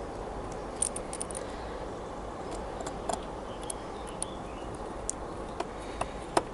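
Small screwdriver turning a tiny screw into the plastic chassis of a model locomotive tender: scattered light clicks and ticks of metal on plastic, over a steady background hiss.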